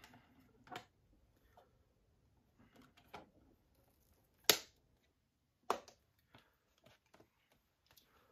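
Disc cases and a metal SteelBook being handled on a table: scattered light clicks and taps, with two sharper clicks about four and a half seconds in and again a second later.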